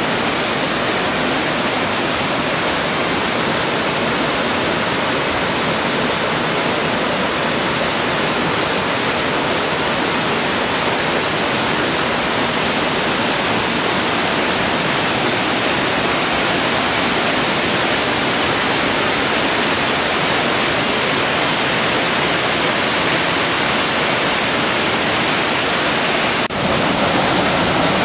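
Waterfall pouring into a rocky plunge pool: a loud, steady rush of falling water, with a brief break near the end.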